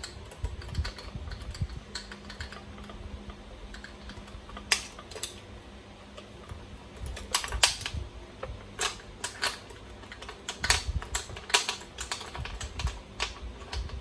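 Irregular sharp clicks and taps of a hand tool on metal screws and plastic chassis parts while screws are worked loose on an RC truck, sparse at first and more frequent in the second half, over a faint low hum.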